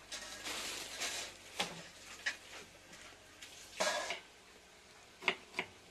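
Rustling of a handful of fresh Vietnamese coriander leaves being handled, with a few sharp clicks and knocks, two of them close together near the end.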